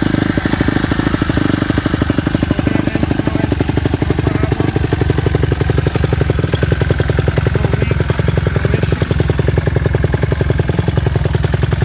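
2009 Suzuki RM-Z250 dirt bike's four-stroke single-cylinder engine idling steadily with a rapid, even firing pulse, just after a choked start.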